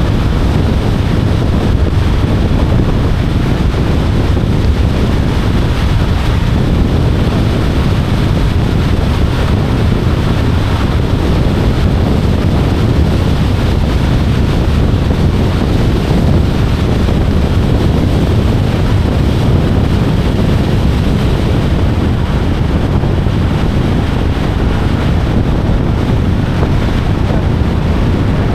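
Strong, steady wind buffeting the microphone: a continuous low rumble with hiss over it.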